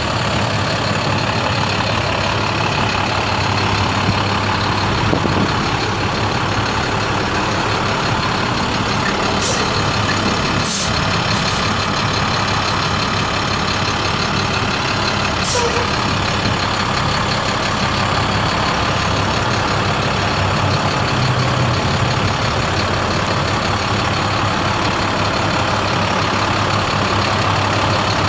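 Heavy truck's diesel engine idling steadily, with a low even hum. A few short high hisses break in about ten and fifteen seconds in.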